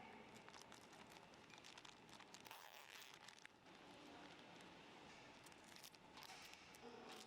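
Near silence, with faint scattered clicks and light rustling.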